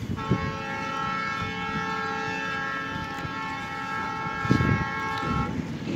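Train horn sounding one long steady chord of several tones for about five seconds, cutting off near the end, over low wind rumble on the microphone.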